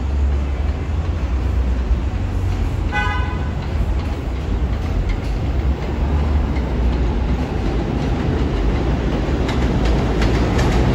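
R142 subway train rumbling along the track, with one short horn toot about three seconds in. Wheel clicks over the rail joints begin near the end and grow louder as the train comes closer.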